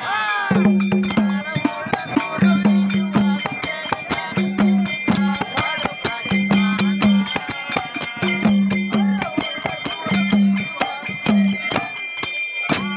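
A girl singing a Kannada folk devotional song (Dhangari ovi) in a high voice, accompanied by small brass hand cymbals struck in a fast steady rhythm and a hand drum.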